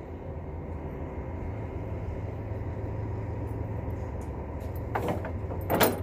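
A vehicle engine idling, a steady low rumble that swells slightly in the middle. Near the end comes a short clatter, the loudest sound.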